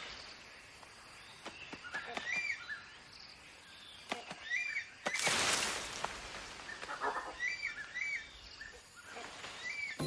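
Tropical forest ambience: a bird repeats a short chirp, often in pairs, every couple of seconds, over scattered faint clicks. About five seconds in, a burst of noise lasting under a second is the loudest sound.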